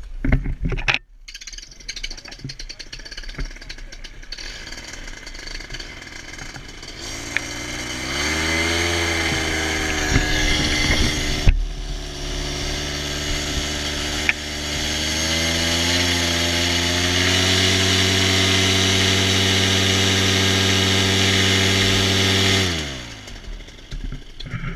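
Paramotor engine starting up and running at a steady pitch, with a brief dip about eleven seconds in. The revs rise about fifteen seconds in and hold high, then the engine is cut and winds down near the end.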